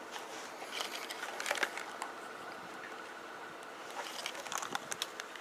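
Faint scattered clicks and small rustling crackles, with a faint steady whine in the middle.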